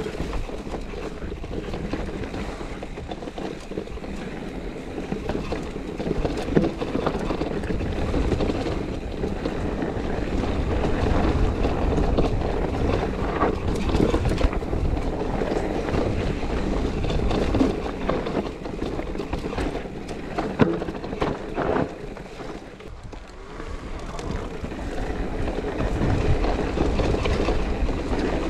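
Enduro mountain bike descending a rough trail: tyres rolling over rock and gravel, with frequent knocks and rattles from the bike, and wind buffeting the action camera's microphone. It eases off for a couple of seconds about three quarters of the way through.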